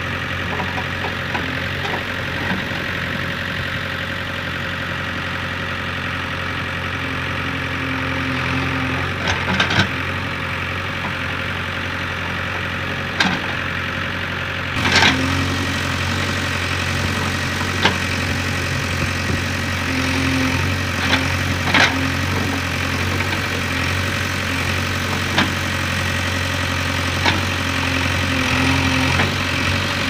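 JCB 3DX backhoe loader's four-cylinder diesel engine running steadily while the backhoe digs and moves soil, with several short metallic clanks from the arm and bucket scattered through.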